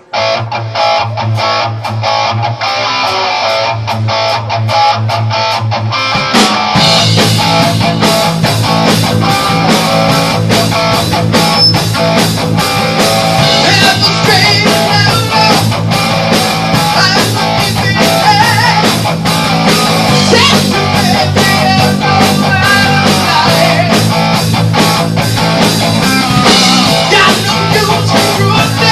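Live rock band playing a hard rock song: an electric guitar riff over a steady beat, turning fuller and heavier with low bass notes from about six seconds in.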